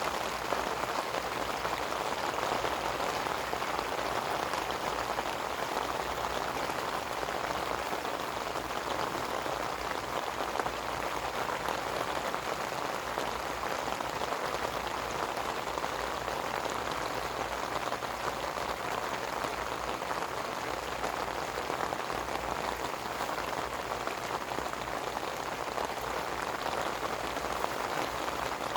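Steady rain falling: an even, continuous patter of many drops that neither builds nor eases.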